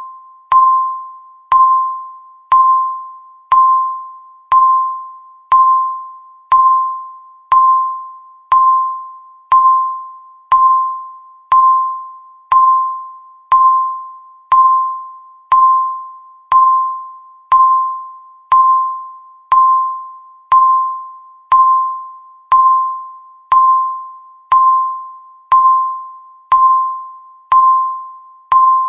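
Countdown timer's electronic tick sounding once a second, each tick a short pinging tone that dies away quickly.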